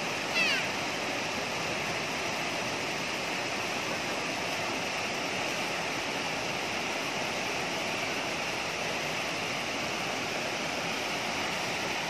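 Steady rushing of a large waterfall cascading over rock steps, with a short high-pitched call about half a second in.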